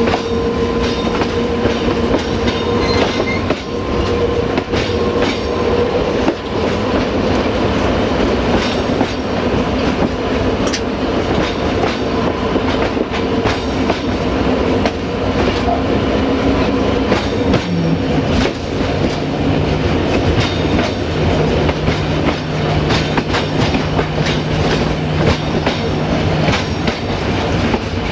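LDH diesel-hydraulic shunting locomotive running through a yard, its wheels clicking over rail joints and points. A steady mechanical drone runs under it, with a lower steady hum coming in about two-thirds of the way through.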